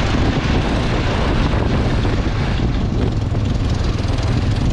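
Strong wind buffeting the microphone outdoors: a steady, loud rush of noise with a heavy low rumble.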